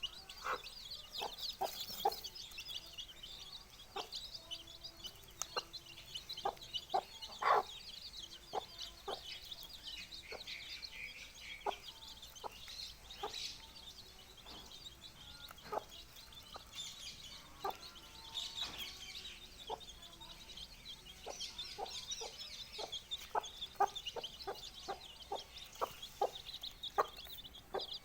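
Young chicks peeping continuously in high chirps, with a mother hen's short clucks dotted irregularly among them, about once or twice a second.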